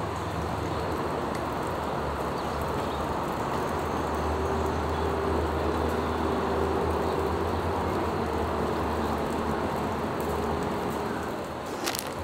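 Steady outdoor traffic rumble that swells through the middle with a faint whine, then eases off. Near the end, a plastic snack wrapper crinkles in the hands.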